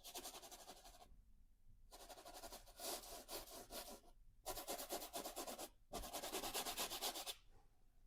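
Paintbrush scrubbing oil paint onto canvas in quick back-and-forth strokes, in four separate spells with short pauses between them.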